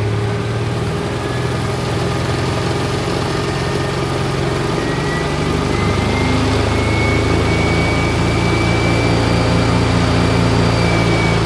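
A 2.4-litre Toyota Hiace car engine running up under load as it drives a General Electric 400 EM aircraft generator in a miniature diesel-electric model locomotive. The engine hum grows gradually louder, and about five seconds in the generator's high whistle comes in, rising slightly in pitch.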